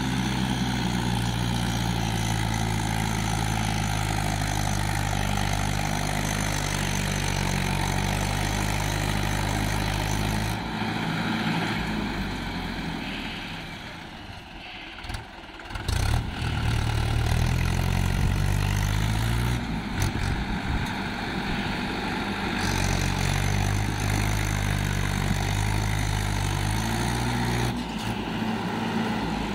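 Swaraj 843 XM tractor's three-cylinder diesel engine running steadily, dropping back about halfway through, then revving up and holding under load as the tractor climbs a steep dirt bank.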